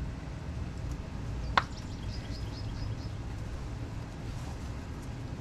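A single sharp metallic click about a second and a half in, from snap-ring pliers and the lock ring being worked onto the end of the front axle shaft, over a steady low outdoor hum.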